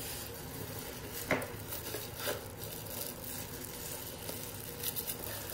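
Rustling and crinkling of cardboard and bubble-wrap packaging as a product box is handled and opened, with a few sharper scrapes and taps: about a second in, again at two seconds, and near the end.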